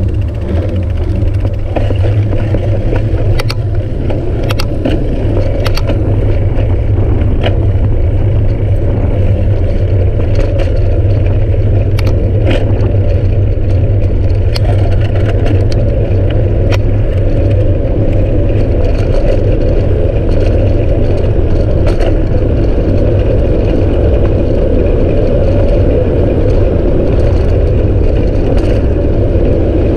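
Wind buffeting the microphone of a handlebar-mounted camera on a bicycle rolling downhill at about 20 to 33 km/h, a steady low rumble, with scattered sharp clicks and rattles from the bike over the road surface, mostly in the first half.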